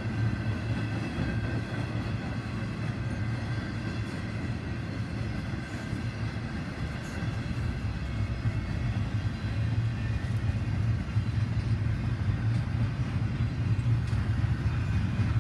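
Freight cars of a CSX intermodal train, flatcars with trailers and double-stack well cars, rolling past: a steady low rumble of steel wheels on rail with occasional clicks, growing a little louder in the second half.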